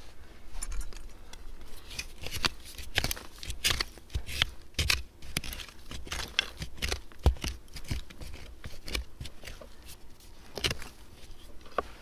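A hand digging tool scraping and scooping through loose dirt, making a string of irregular gritty scrapes and small knocks.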